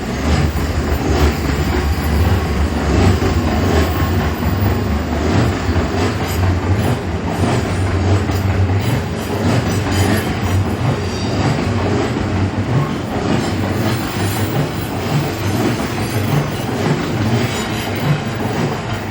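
Odakyu Odawara Line electric commuter train passing close by over the level crossing: a steady heavy rumble with repeated clatter of wheels over the track, fading slightly near the end.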